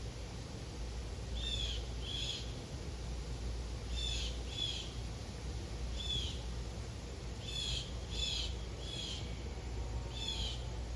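A bird calling repeatedly: short, hooked chirps every second or two, often in pairs, over a steady low rumble.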